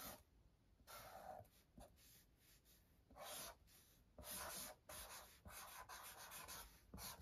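Sharpie felt-tip marker drawing letters on cardstock: a faint series of short scratchy pen strokes with brief pauses between them.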